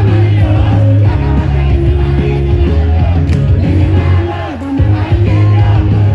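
Upbeat idol-pop song played loud through the stage PA, with female voices singing over a heavy bass line. The bass drops out briefly about four and a half seconds in.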